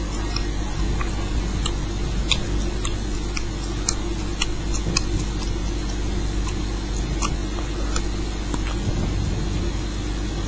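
Steady low background hum with scattered small, sharp clicks.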